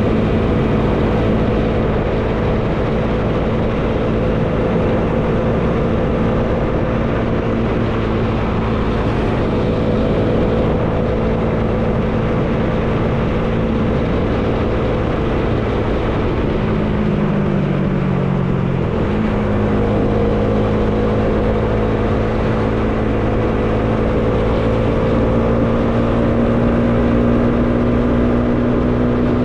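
Bajaj Dominar 400 motorcycle engine running steadily under way, with wind rushing over the rider. A little past halfway the engine note dips for about two seconds, then comes back and climbs slowly as the bike picks up speed.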